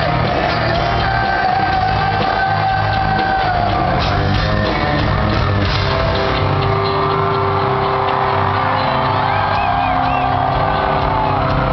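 Live hard rock band playing loud, with drums, guitar and vocals, and shouting over the top. It is heard from within the audience through a small camera's microphone.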